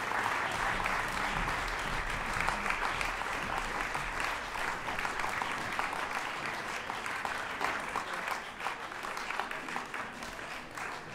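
Audience applauding, the clapping thinning out and fading toward the end.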